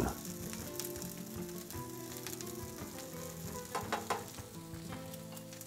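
Cauliflower florets frying in hot olive oil in a nonstick fry pan: a steady sizzle. A wooden spoon stirs them, with a few scrapes and knocks about four seconds in.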